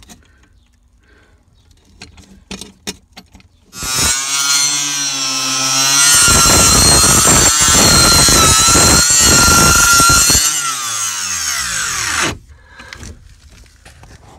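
Circular saw switched on and spinning up with a rising whine, then cutting through the rotted boat floor for about four seconds. The cut stops about ten seconds in and the saw winds down with a falling whine, ending near the twelve-second mark. Faint handling clicks come before the start.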